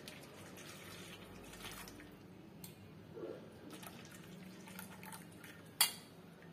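Melted jaggery water trickling from a steel saucepan through a small steel tea strainer into a steel bowl, faint, with a few small clicks and one sharp clink of steel near the end.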